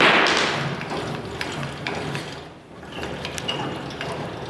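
Powermatic 201 planer's bed being cranked up and down by its manual handwheel, the gears and jack screws turning with a steady mechanical clicking and grinding. It pauses briefly about two and a half seconds in, then resumes. The jack screws and their bearings are newly replaced, and the bed moves smoothly.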